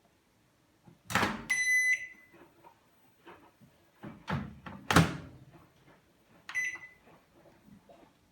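Daewoo microwave oven being worked: a clunk from the door or its latch about a second in, followed by a short electronic beep. A louder door thump comes around five seconds in, then a second short beep.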